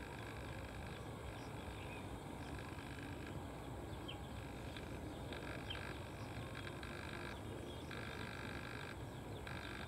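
A chorus of calling animals, a cluster of high steady notes that starts and stops in bouts of a second or two, over a low steady rumble.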